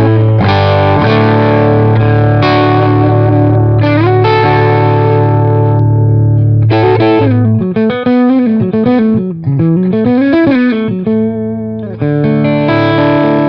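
Electric guitar played through the Oldfield 6715 all-tube 15-watt amp (two EL84 power tubes, EF86 preamp), with an overdriven tone. Held, ringing chords give way about eight seconds in to a single-note lead run with string bends, and a fresh chord is struck near the end.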